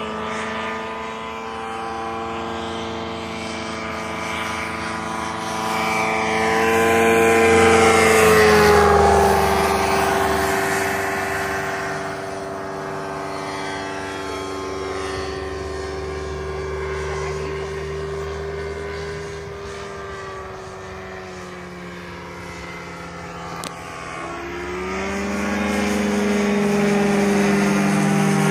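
Propeller-driven airplane's engine droning as it flies passes overhead. It grows louder and drops in pitch as it goes by about eight seconds in, then rises in pitch and loudness again near the end as it comes back around.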